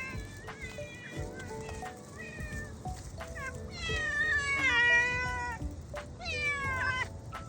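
Cat meowing repeatedly, with one long, loud meow about four seconds in and another shortly after, over background music.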